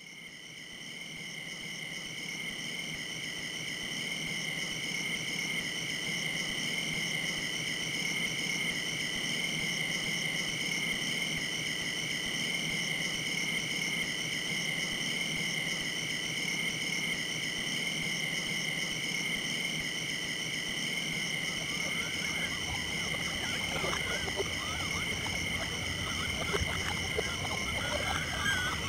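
Steady chorus of calling insects: several constant high pitches with a fast wavering pulse, fading in at the start. From about two-thirds of the way through, a low rumble and scattered short chirps join.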